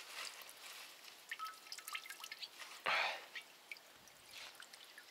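Bitumen-and-petrol tar dripping and trickling from a freshly dipped fishing net back into the bucket: scattered small drips, with a brief louder rush about three seconds in.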